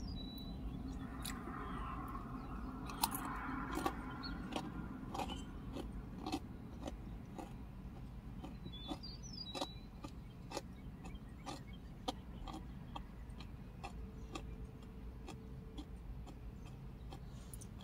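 Someone chewing crunchy corn chips: a run of irregular, crisp crunches, busiest in the first few seconds and then sparser.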